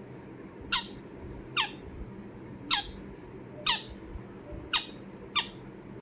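Pineapple conure, a green-cheeked conure, giving six short, sharp squawks about once a second, each sweeping quickly down in pitch.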